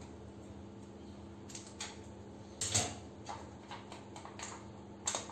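Scissors snipping open a plastic handwash refill pouch, with short clicks and crinkles of the plastic, the loudest about two and a half seconds in, over a faint steady hum.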